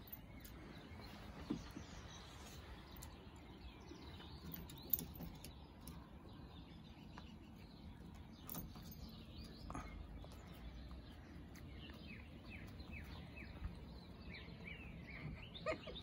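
Faint bird chirps, a run of short high chirps growing busier in the last few seconds, over a steady outdoor background hiss with a few faint taps.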